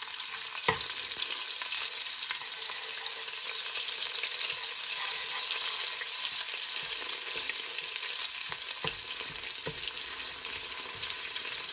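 Red curry paste sizzling steadily in hot coconut oil in a stainless steel pot, stirred and broken up with a metal slotted spoon. A few sharp clinks of the spoon against the pot, one about a second in and two more near the end.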